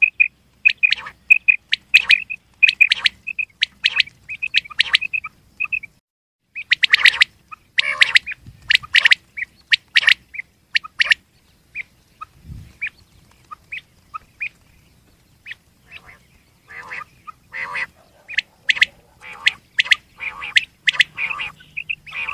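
Male rain quail calling: short, sharp, high notes repeated rapidly, often in pairs. The calls come thick and loud about seven to eleven seconds in, thin out for a few seconds, then pick up again near the end.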